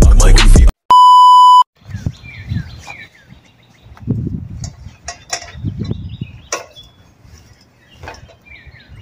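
Music cuts off and a single steady electronic beep sounds for under a second. Then quiet outdoor ambience follows, with a small bird chirping repeatedly in short falling notes and a few low rumbles.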